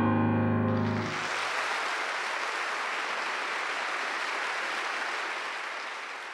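A piano's closing chord rings out, and about a second in it gives way to audience applause that holds steady and then slowly fades.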